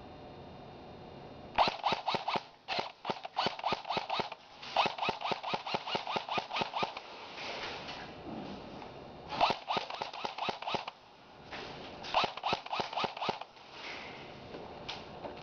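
Airsoft electric guns firing on full auto in several short bursts of rapid clicking shots, separated by pauses of a second or so.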